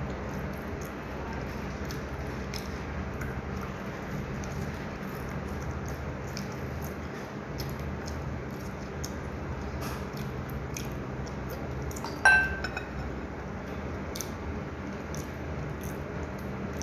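Close-up eating sounds: small wet chewing and mouth clicks as a soft meat-filled bun is torn and eaten, over a steady low hum. About twelve seconds in there is one sharp ringing clink, like a utensil or dish knocking ceramic or glass.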